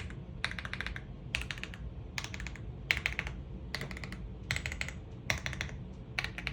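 AULA F75 mechanical keyboard being typed on: short runs of quick keystroke clicks, about one run a second.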